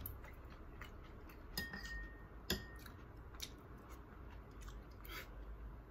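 Quiet eating sounds: a few faint, scattered clicks of utensils against a dish.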